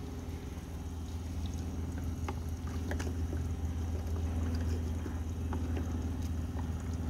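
Steady low machine hum made of several even, level tones, growing slightly louder, with a few faint clicks.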